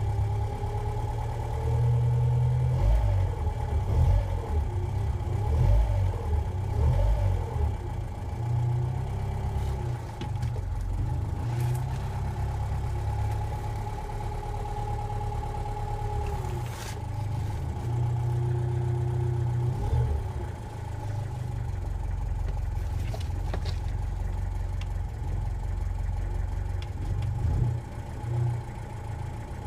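Engine of an old 6-volt vehicle running after a hard start, revved up and down several times and then held at a steadier speed, with a steady whine above it.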